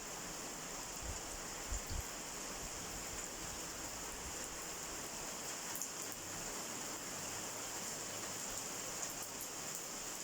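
Steady rain falling, an even hiss throughout, with a couple of soft low bumps about two seconds in.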